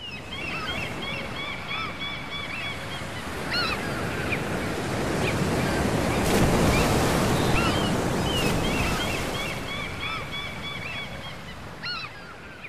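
Sea surf washing in, swelling to its loudest about midway and fading away near the end, with seagulls calling over it again and again.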